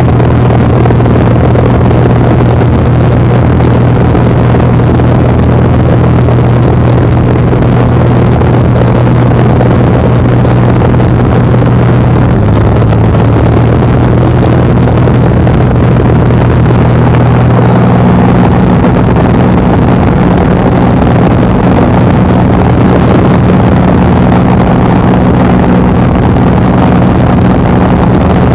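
Cessna L-19 Bird Dog tow plane's six-cylinder air-cooled piston engine and propeller running steadily under power while towing a glider, heard inside the cabin with wind noise. The engine note steps slightly lower about halfway through.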